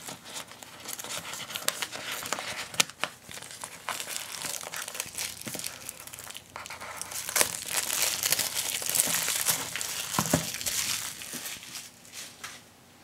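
A cardboard box being opened and handled: rustling and scraping of the paperboard, some tearing, and scattered sharp taps as it is turned over and set down, dying down near the end.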